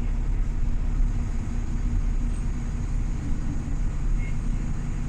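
Steady low rumble of a road vehicle's engine, with a faint steady hum.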